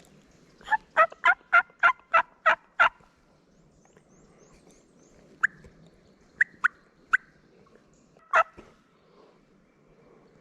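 Turkey yelping: a quick, evenly spaced run of about eight loud yelps, then a handful of single sharp clucks spread over the following few seconds.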